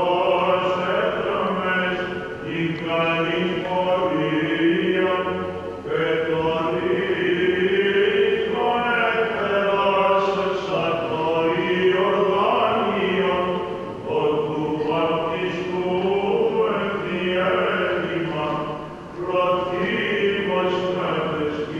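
Byzantine chant of an Orthodox church service: voices sing a flowing melodic line in unbroken phrases over a steady low held note.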